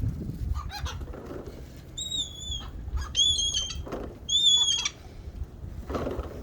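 Wild birds calling: three clear high-pitched calls, each about half a second long and dipping slightly in pitch, about two, three and four seconds in, over a low rumble of wind on the microphone.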